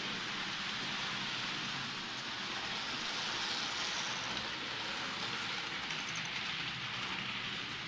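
A model train running on a model railway layout, its motor and wheels on the track making a steady hissing rumble with a faint low hum. It is slightly louder about three to four seconds in, as the train passes close by.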